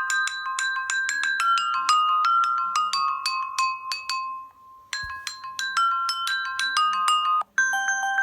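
Stock ringtone of a ZTE Blade A5 2019 phone playing: a quick melody of short struck notes that stops about four and a half seconds in and starts over at five seconds. Near the end a different ringtone with longer held tones begins.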